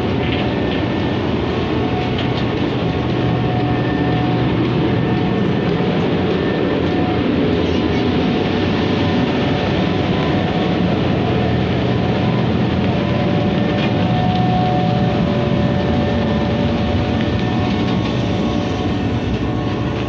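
Diesel engine of a HAMM single-drum road roller running steadily at close range as the roller rolls slowly past, a dense, even machine noise with faint steady whines over it.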